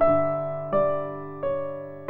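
Slow, soft background piano music: a chord is struck about every 0.7 seconds, three in all, each fading before the next.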